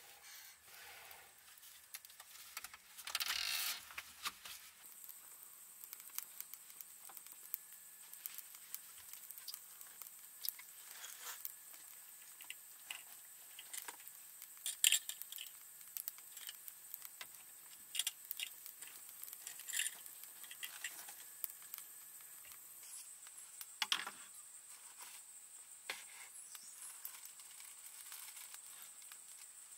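Scattered light clicks, taps and rustles of handling work, with a louder rustle about three seconds in and a steady high-pitched whine from about five seconds in.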